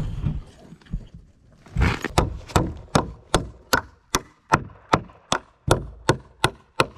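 Hammer driving nails into wooden concrete form boards: a steady run of about a dozen sharp blows, roughly two and a half a second, starting about two seconds in.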